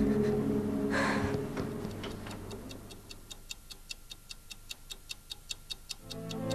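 Music fading out, with a brief hiss about a second in. Then a clock ticking sound effect, about five even ticks a second, with music coming back in near the end.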